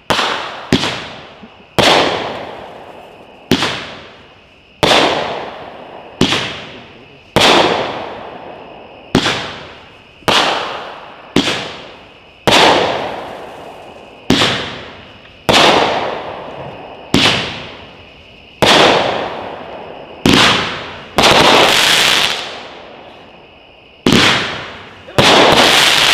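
A 14-shot 200g firework cake (World Class Fireworks 'Angry Beaver') firing shot after shot, a sharp report about every second or so, each fading out over the following second. The last few shots, near the end, are the loudest and longest.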